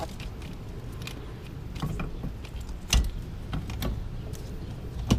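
Scattered light clicks and knocks as the engine's coil pack bracket, with its coil packs and wiring, is handled and shifted aside; the loudest knock comes about three seconds in.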